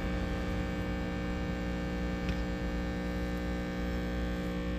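Sample pump of a QROTECH QRO-401 exhaust gas analyzer running with a steady hum, its note changed from normal. It is not the sound of pressure building but a sign of a fault: a filter inside the probe handle assembled the wrong way round, restricting the sample flow.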